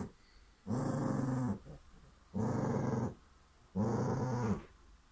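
Pet dog growling in three low, drawn-out growls about a second and a half apart, each just under a second long, the growl of a dog guarding its owner.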